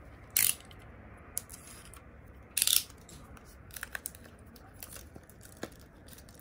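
Plastic shrink wrap on a boxed album being slit with a box cutter and torn off: two short, sharp rips about two seconds apart, with small ticks and rustles of the plastic between them.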